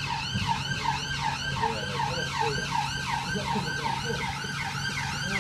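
Emergency vehicle siren sounding in a fast yelp, its pitch sweeping up and down about four times a second.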